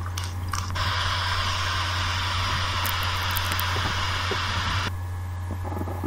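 Steady hiss over a constant low hum. The hiss cuts in just under a second in and drops away abruptly about five seconds in, leaving the hum.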